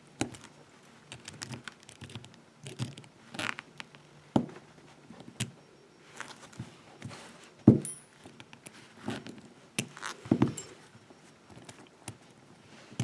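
Irregular small metallic clicks, taps and rattles of a pin tumbler lock cylinder and its picking tools being handled as its plug is turned.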